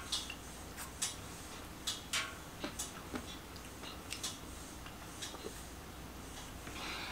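Someone drinking water from a glass: faint, irregular small clicks and gulps.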